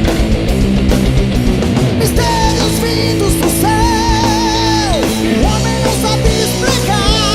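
Heavy metal band playing: distorted guitars, bass and drums, with a held lead melody line wavering with vibrato coming in about two seconds in.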